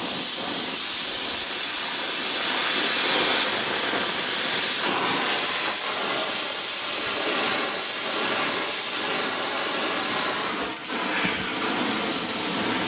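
Steady hiss of gas flames: an oxy-propane brazing torch playing on bronze, with a propane gas ring burning beneath it. The hiss dips briefly once near the end.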